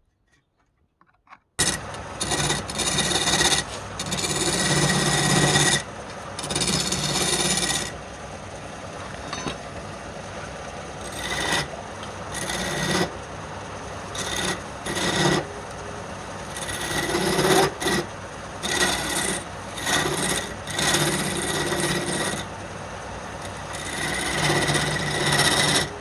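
A tool rasping against wood on a running wood lathe, starting abruptly about a second and a half in and going in uneven louder strokes over a steady motor hum.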